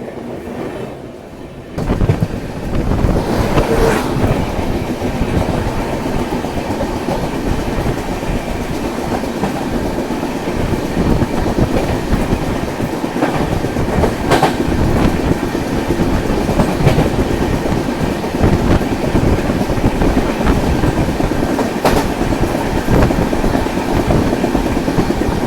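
Passenger train coach running on the track, with steady wheel rumble and clickety-clack as the wheels pass over rail joints, just after the train has left the station. The noise jumps suddenly louder about two seconds in, and sharp clacks stand out now and then.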